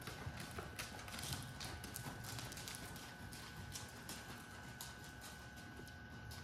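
Hoofbeats of a grey horse trotting under a rider on sand arena footing, in a steady rhythm.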